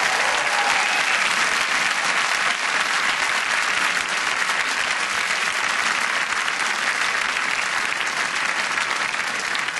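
A large hall audience applauding steadily: dense, even clapping from a packed crowd, greeting the end of a stand-up set.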